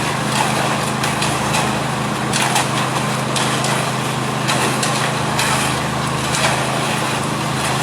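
A small engine running steadily, with short bursts of scraping noise every second or two.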